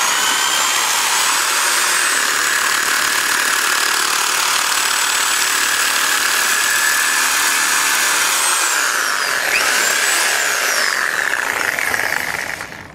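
Handheld power saw cutting through a steel fence: a loud, continuous high-pitched cutting whine that starts abruptly, drops in pitch under load and picks back up around eight to ten seconds in, then stops near the end.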